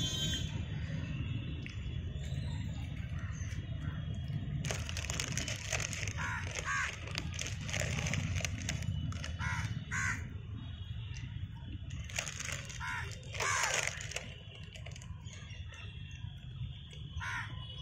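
House crows cawing: repeated short, harsh caws, bunched in clusters through the middle of the stretch, over a steady low rumble.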